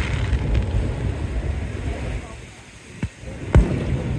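Fireworks going off: two sharp bangs about three seconds in, half a second apart, over steady low wind noise on the microphone.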